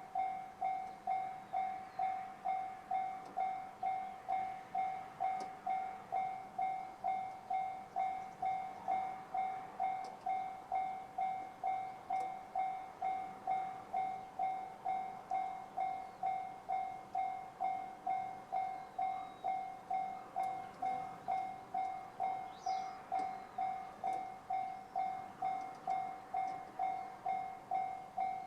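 Japanese railway level-crossing alarm sounding the JR standard electronic bell tone: a single pitched ding repeated evenly, a little under two strikes a second, the signal that a train is approaching and the barriers are down.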